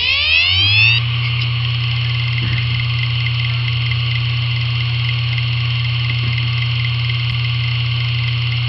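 A hard disk drive presented as damaged, spinning up: its motor whine rises in pitch over about the first second, then settles into a steady hum with a steady high-pitched whine above it.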